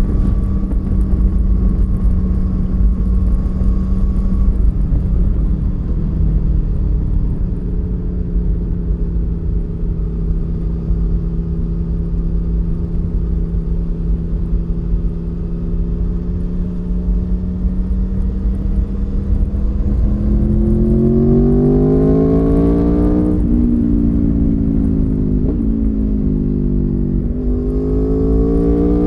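Stock 2019 Aprilia Tuono V4 1100 Factory's V4 engine heard onboard at speed under heavy wind noise: it holds steady revs for about two-thirds of the time, then the revs climb, drop sharply about 23 seconds in, sink, and climb again near the end.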